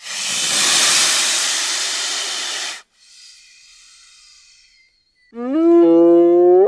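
A sequence of animal sounds: a loud hiss lasting almost three seconds, then a faint pitched call, then a loud pitched call that rises in pitch near the end.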